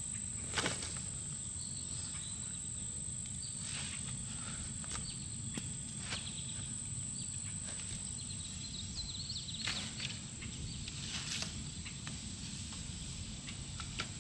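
A steady high-pitched insect drone over a low rumble, with a few short bird chirps. About half a dozen scattered knocks and rustles come from firewood being gathered and handled.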